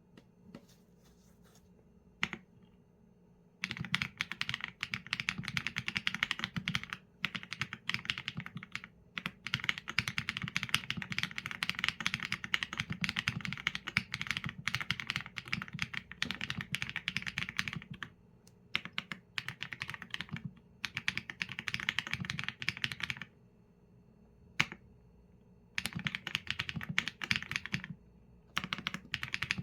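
Mechanical keyboard typing: a Qsenn A75 with Leobog Graywood V4 linear switches and PBT keycaps, rapid runs of keystrokes broken by a few short pauses, with a lone keypress now and then in the gaps.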